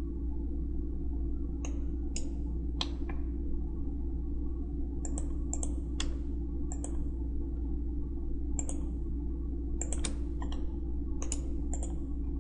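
Computer mouse and keyboard clicks, scattered singly and in quick runs of two or three, over a steady low electrical hum.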